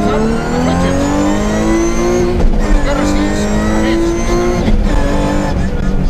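BMW 323i rally car's straight-six engine accelerating hard, heard from inside the cabin: the pitch climbs, drops sharply with an upshift about two seconds in, climbs again and drops with a second upshift near the end.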